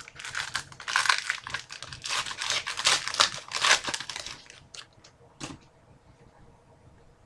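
Foil trading-card pack wrapper being torn open and crinkled for about four and a half seconds, followed by a couple of light clicks.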